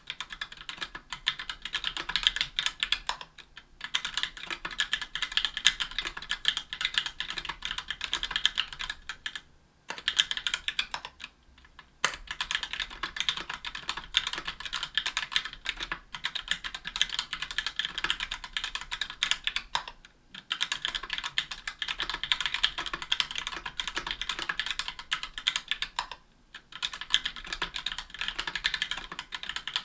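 Fast, continuous typing on a 60% aluminum-case mechanical keyboard with stock Gateron Black Ink linear switches bottoming out on an aluminum plate under GMK keycaps. Dense clacks of keystrokes, broken by a few short pauses.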